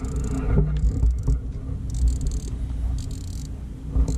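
A spinning fishing reel whirring in short bursts about once a second, over a steady low rumble.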